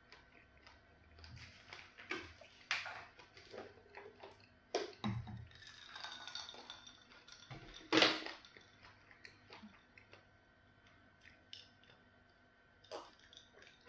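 Wet clicks and smacks of eating with the hand, then a drink poured from a bottle into a glass, running for a second or two from about six seconds in. A sharp knock, the loudest sound, follows at about eight seconds, and there are gulps from the glass near the end.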